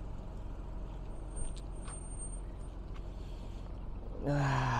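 Vehicle engine running steadily with a low hum and a couple of faint clicks. Near the end comes a louder pitched sound that falls slightly.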